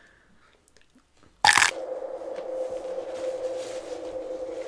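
One sharp crunch about a second and a half in as a breaded chicken nugget is bitten, followed by a steady hum.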